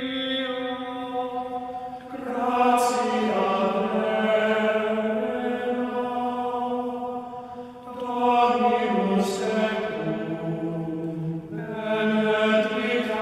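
Slow devotional hymn chanted in long held notes, with new sung phrases beginning about two, eight and twelve seconds in.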